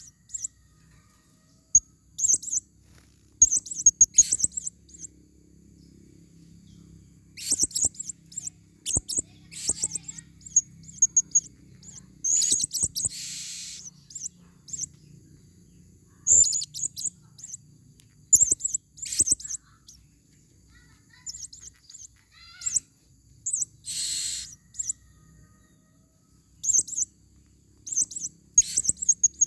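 Female blue-crowned hanging parrots (serindit) calling: quick bursts of short, very high-pitched chirps, with a longer, harsher screech about 13 seconds in and again about 24 seconds in.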